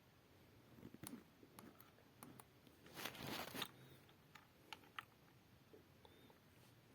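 Near silence, broken by a few faint small clicks and one brief rustle about three seconds in.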